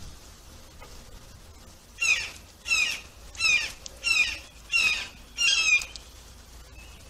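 A songbird singing one loud song of six quick, evenly repeated phrases, about one and a half phrases a second, starting about two seconds in.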